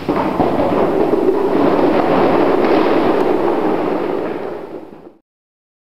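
A tall stacked tower of small boxes collapsing: a sudden crash, then a dense clatter of many boxes tumbling and hitting the floor for about five seconds, fading slightly before it cuts off.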